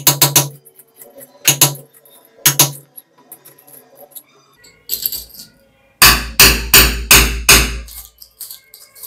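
A hammer knocking a nail into a plastered wall to start a hole. There are a few single blows in the first three seconds, then a quick run of about five heavier blows, each with a dull thud, from about six seconds in.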